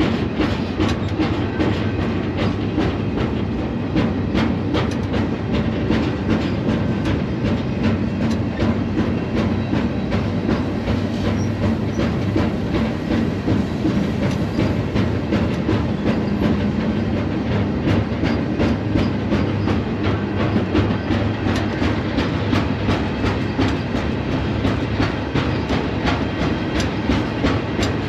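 Freight train rolling along with a steady low rumble and frequent sharp clacks of steel wheels over the rails.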